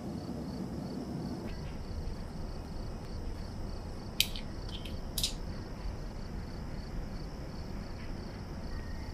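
A few small, sharp metallic clicks, two of them clear about four and five seconds in, as the case back of a Rolex Datejust is handled and lifted off in a case holder. Under them runs a steady low hum and a faint, high, evenly pulsing tone.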